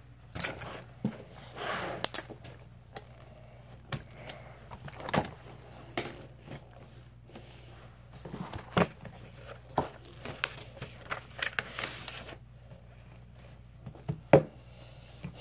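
Paper and school supplies being handled on a desk: soft rustling of paper with scattered short clicks and knocks, the sharpest a little before the middle and one near the end.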